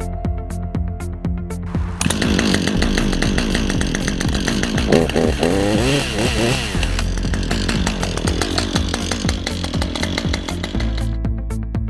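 Husqvarna two-stroke chainsaw engine comes in about two seconds in and runs, revved up with the throttle in the middle as it is brought to normal running speed after the choke is closed. It stops about a second before the end, leaving the backing music with a steady beat.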